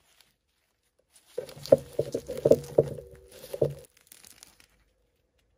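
Crisp crust of a baked Tuscan schiacciata crackling and crunching as the flatbread is broken open by hand: a run of sharp cracks lasting about two seconds, then a few fainter crackles.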